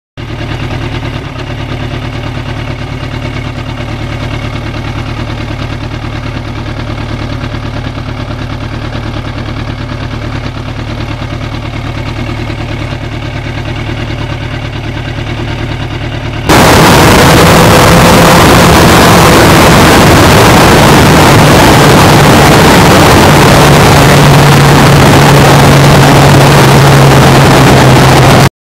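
1991 Yamaha FZR1000's inline-four engine idling steadily. About sixteen seconds in, it cuts abruptly to the bike riding at speed: engine and wind noise on the on-board microphone, much louder and hitting the top of the recording level.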